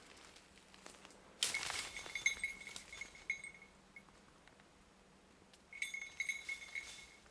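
Metal bell on a hunting dog, a Drahthaar, jingling in two spells: the first starts suddenly about a second and a half in and lasts about two seconds, the second starts near the end.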